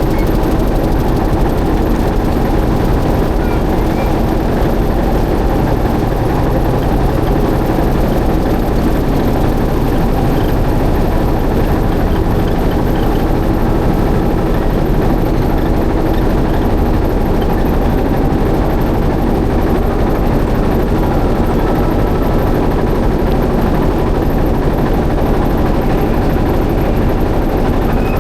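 Boat engine running steadily at an even speed, a loud continuous rumble with a steady hum.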